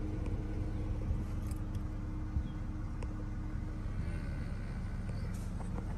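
Steady low rumble of an engine running, with a thin steady hum that fades out a little before four seconds in, and a few faint light clicks and rattles.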